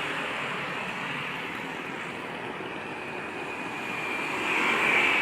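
Road traffic passing, with a steady rush of engine and tyre noise that grows louder near the end as a vehicle comes close.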